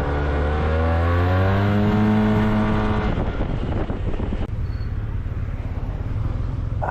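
Yamaha T-Max 530 maxi-scooter's parallel-twin engine, with a Malossi Over Range variator kit in its drive, pulling with its pitch rising for about two seconds, then easing off about three seconds in as the throttle closes, leaving a low rumble and wind rush.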